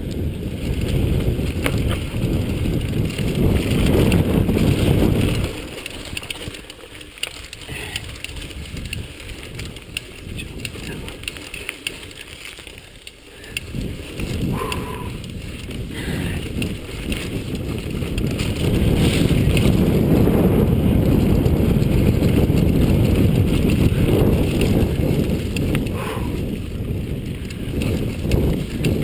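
Chumba VF2 mountain bike ridden fast down a dirt singletrack: tyre roar and rattling over the ground mixed with wind rumble on a helmet-mounted microphone. It is loud for the first few seconds, quieter through the middle, and loud again for the last ten seconds or so, with a couple of brief squeaks.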